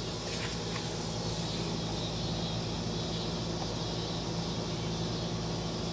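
Steady low mechanical hum over an even background hiss, unchanging throughout.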